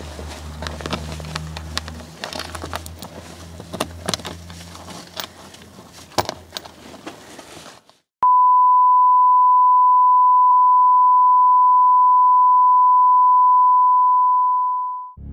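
Scattered clicks and knocks of hand work under a car, over a low hum. About eight seconds in these give way to a loud, steady, single-pitched electronic beep that holds for about seven seconds and fades out at the end.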